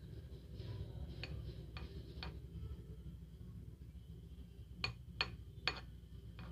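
Light clicks and taps of a utensil while garlic mayo is spread on bread slices: a few soft ticks in the first half, then three sharper clicks in quick succession near the end, over a faint low hum.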